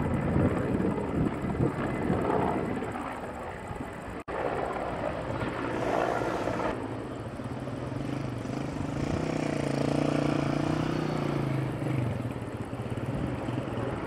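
Firefighting helicopter flying over, its rotor and engine running steadily, with a steady low hum clearest in the second half. The sound breaks off briefly about four seconds in.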